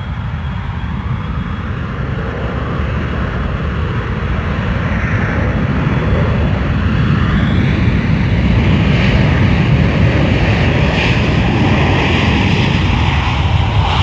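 Aircraft taking off, heard from outside: a deep engine rumble that grows steadily louder, with a faint rising whine midway.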